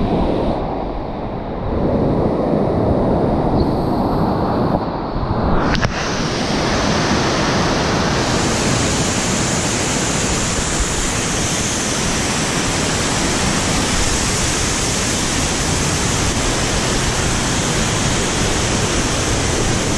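Water rushing down a small rocky waterfall, a steady noise. About six seconds in, after a click, the sound turns suddenly brighter and fuller and stays even.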